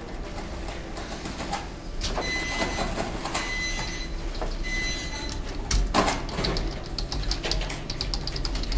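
Computer keyboard being typed on, a fast run of key clicks near the end, over a steady low room hum. Three short high electronic tones sound in a row, starting about two seconds in.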